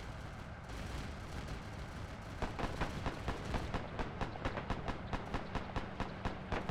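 A low battlefield rumble, then from about two and a half seconds in a long run of rapid, evenly spaced shots, about four to five a second: machine-gun fire.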